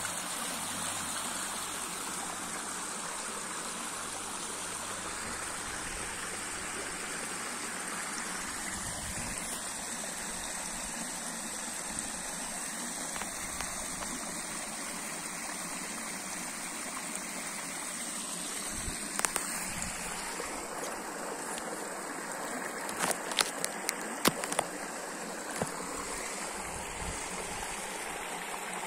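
Shallow rain-fed stream running steadily, spilling over a low concrete step and splashing among rocks. A few sharp clicks come in the last third.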